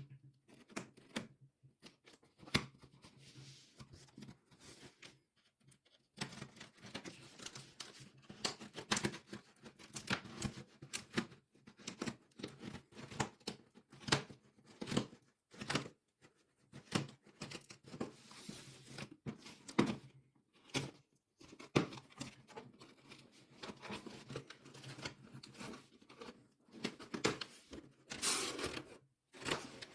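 Packaging being torn open by hand: irregular tearing and crinkling with sharp clicks and rustles, stopping briefly a few times.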